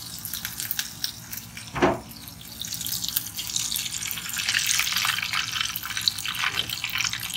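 Chunks of horumon (offal) frying in a lot of oil in a saucepan: a steady sizzle with many sharp crackles and pops of spitting oil, growing busier in the second half. A single thump about two seconds in is the loudest sound.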